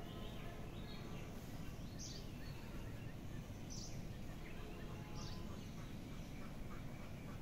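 Birds calling in the background: three short high chirps, about a second and a half apart, with fainter calls between them, over a steady low hum of outdoor noise.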